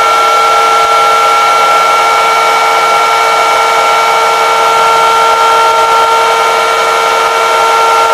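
Electric hand mixer running steadily, its motor giving a constant whine as the beaters whisk egg yolks and sugar in a glass bowl until the mixture turns pale.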